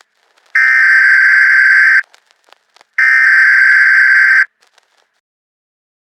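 Emergency Alert System SAME digital data bursts, the end-of-message tones that close the alert: two identical buzzing bursts, each about a second and a half long, a second apart, the last of a series of three.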